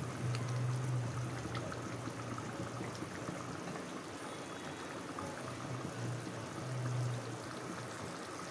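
Onion-masala gravy bubbling at a boil in a wide pan, a steady hiss with small scattered pops and a low hum beneath.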